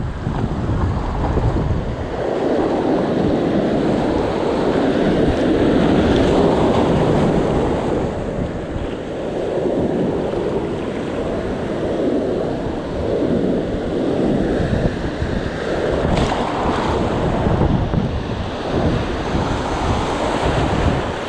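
Ocean surf breaking and washing up the shore in repeated surges a few seconds apart, with wind buffeting the microphone.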